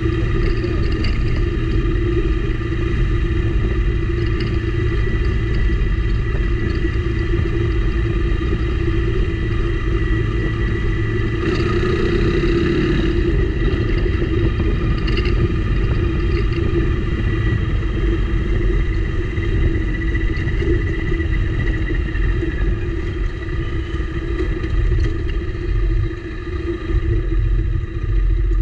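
Motorcycle engine running at a steady, unchanging pitch over a heavy low rumble from riding on a rough dirt road.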